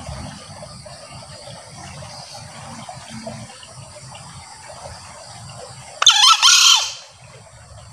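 Male green junglefowl giving one short, shrill crow about six seconds in, over a steady background hiss.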